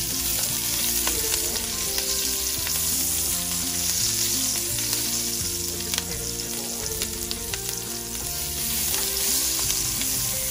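Diced onion sizzling as it sautés in hot oil in a stainless steel pan, stirred and spread with metal tongs that click against the pan now and then.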